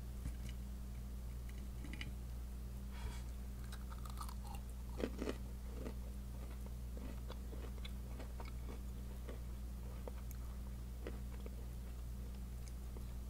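A person chewing a mouthful of syrup-soaked waffle, with faint, soft, repeated mouth clicks. A few louder clicks of the fork come about five seconds in, as the bite is taken. A steady low hum lies under it all.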